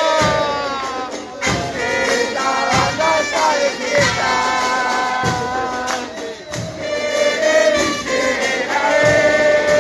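A crowd of football supporters singing a chant together, with a drum beating steadily about once every second and a quarter.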